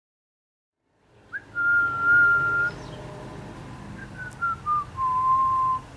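A person whistling: one long steady note, then a short run of notes stepping down into a lower held note.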